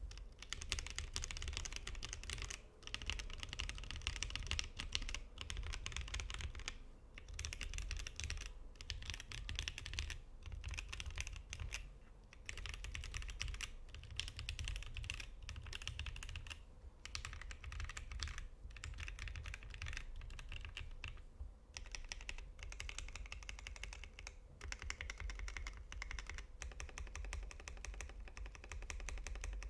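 Custom Satisfaction 75 mechanical keyboard being typed on: lubed and filmed Gateron CJ linear switches on an FR4 plate under GMK Umbra keycaps give a fast, steady stream of key clacks, broken by brief pauses every few seconds.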